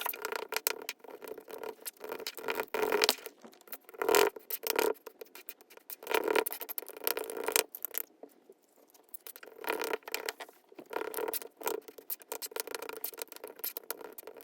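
Small objects being handled close up: irregular rustling, scraping and light clicking in bursts, with short pauses between.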